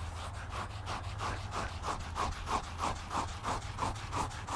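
Fingers scratching quickly back and forth over a draft horse's hair coat, a rhythmic rubbing at about four strokes a second.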